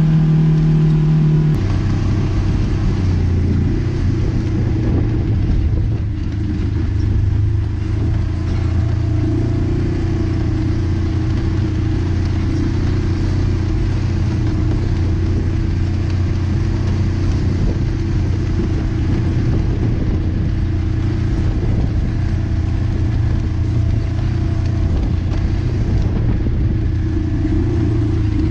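Side-by-side UTV's engine running steadily while driving a rough dirt trail, heard from inside the open cab; its note drops to a lower, steady hum about a second and a half in.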